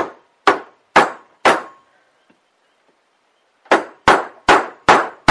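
Rubber mallet striking a 1¼-inch steel socket to drive a new crankshaft oil seal into an engine's crankcase cover: four sharp strikes about two a second, a pause of about two seconds, then five more.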